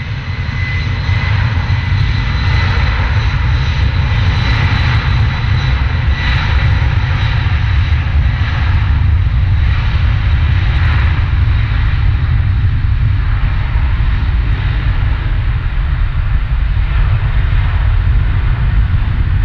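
Boeing 747-400's four jet engines at takeoff power as the airliner rolls down the runway: a steady, loud, deep rumble, with a thin high whine that fades over the first several seconds.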